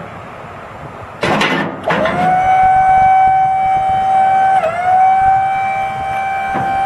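A diesel truck engine, the GMC T6500's Caterpillar 3116 six-cylinder, cranking briefly about a second in and catching. After that a steady high whine holds, dipping briefly in pitch near the middle.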